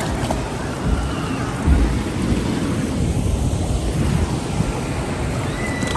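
Water rushing along a log flume ride, with wind buffeting the microphone in uneven low rumbles.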